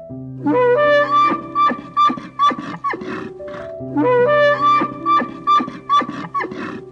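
Background instrumental music: a short melodic phrase over held bass notes, played twice.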